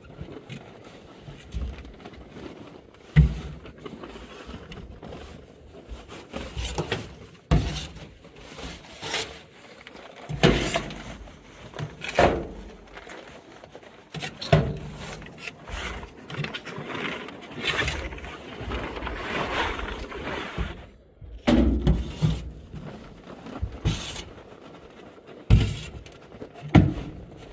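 Manual shovelling of manure in a cowshed: irregular knocks of the tool every one to three seconds, with scraping between them.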